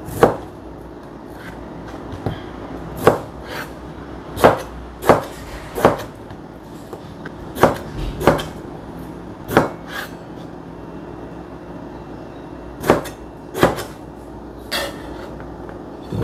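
Chinese cleaver chopping peeled bamboo shoot into chunks on a cutting board: about fifteen sharp knocks at an uneven pace, with a pause of a few seconds past the middle.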